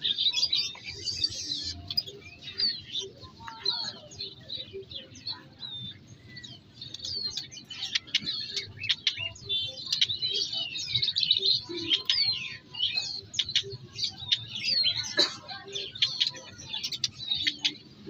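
Many caged songbirds chirping and twittering at once, overlapping short high chirps and whistles that grow busier about halfway through.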